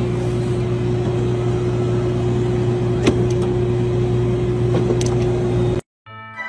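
Soft-serve ice cream machine running with a steady mechanical hum while it dispenses ice cream into a cone, with a couple of faint clicks. It cuts off abruptly near the end, and orchestral-sounding music begins.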